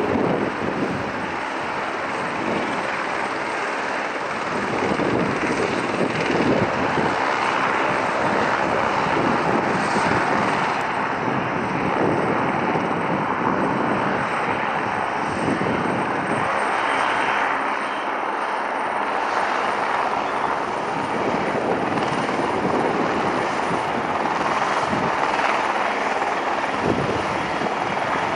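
Light turbine helicopter running on a helipad: a steady, even engine-and-rotor noise that holds level throughout.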